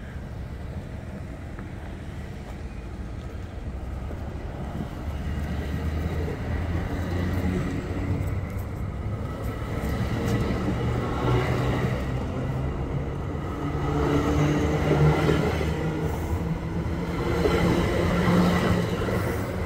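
Bombardier MultiLevel commuter train pulling out of the station, its double-deck coaches rolling past on the rails with a low drone and a rumble that grows louder as it gathers speed, with a few clanks in the second half.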